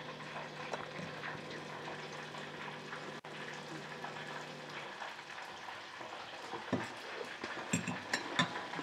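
Faint steady sizzle of alligator pieces deep-frying in oil, with a low hum that stops about halfway through. A few light clinks of a metal fork against a plate come near the end.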